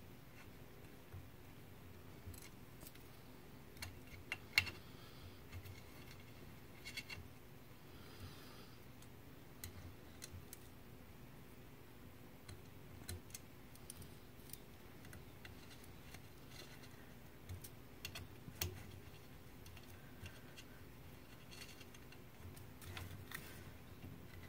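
Scattered faint clicks and taps of small cap screws and a hex key being handled against an aluminium carriage plate, with a couple of sharper metallic ticks among them.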